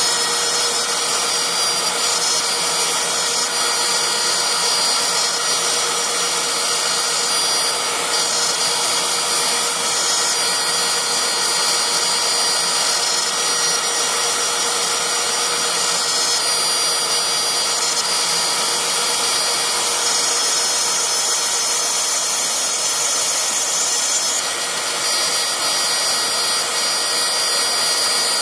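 LowRider 3 CNC router milling a 6061 aluminium plate with a small end mill: the spindle runs with a steady high-pitched whine over the constant noise of the cut.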